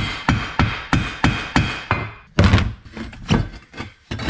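Hammer striking a screwdriver used as a punch against a cast aluminium housing, with steady blows about three a second, to drive stuck remnants out of the casting. The blows stop about two seconds in and are followed by a scrape and a few clinks of metal being handled.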